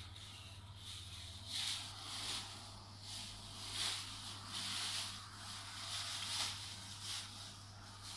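Thin clear plastic wrapping crinkling and rustling in irregular bursts as it is pulled off a furry fursuit part, over a steady low hum.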